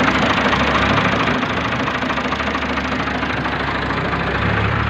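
Ford 4600 tractor's three-cylinder diesel engine idling steadily, with the usual diesel knock.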